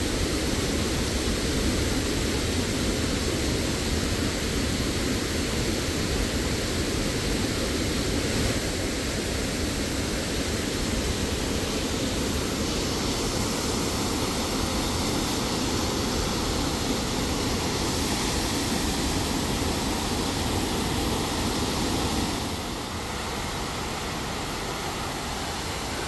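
Water pouring over a terraced concrete weir, a steady rushing noise that eases a little near the end.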